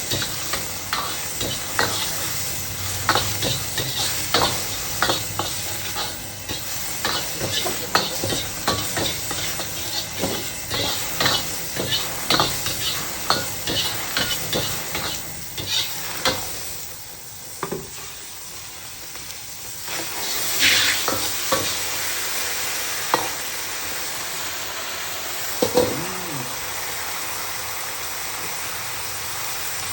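Beef sizzling as it is stir-fried in a wok over a high flame, a metal spatula clanking and scraping against the wok in quick strokes. About halfway through the strokes stop and the sizzle carries on steadily, with a single knock later on.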